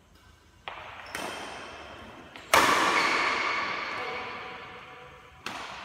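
Badminton rackets striking the shuttlecock in a doubles rally: four sharp hits, the one about two and a half seconds in the loudest. Each hit rings on in the long echo of a large metal-walled hall.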